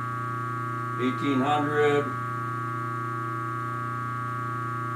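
Rikon 1 hp 8-inch low-speed bench grinder running with no wheels fitted, at about 1,800 RPM: a steady hum with higher steady tones above it. A man's voice sounds briefly about a second in.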